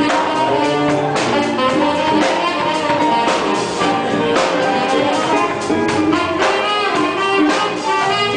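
Gospel orchestra playing an instrumental piece with wind instruments over a steady drum beat.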